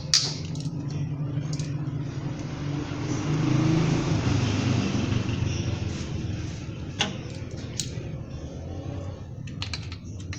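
A car engine running steadily, growing louder for a couple of seconds in the middle, with a few sharp clicks or taps.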